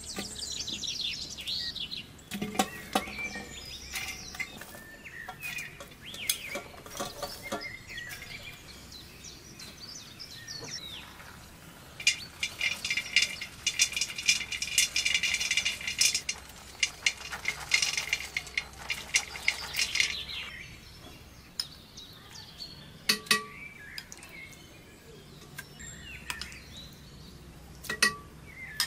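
Metal cookware and utensils clinking and knocking, with a dense run of ringing clinks for several seconds around the middle. Birds chirp now and then.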